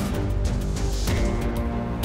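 Soundtrack music: sustained chords over percussion hits, with the chord changing about halfway through.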